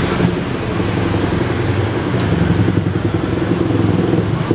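Motorcycle engine running steadily with a fast, even pulsing hum.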